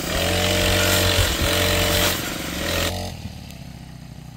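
Brush cutter (motorised grass trimmer) engine revving high under load, then easing off toward idle about three seconds in.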